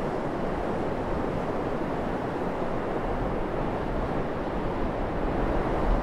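Pacific Ocean surf washing onto a sand beach, a steady rush of waves that swells a little near the end.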